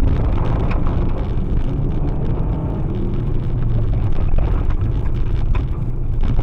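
Rally car's engine running hard on a gravel stage, heard from inside the cabin, with loose gravel clicking and pinging against the underbody.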